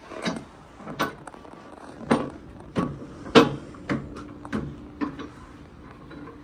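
A series of about eight knocks and clunks, wood on metal, as a sawn pine cant is stood on edge and shifted against the stops of a Wood-Mizer portable sawmill's bed, before it is clamped. The loudest knock comes about halfway through.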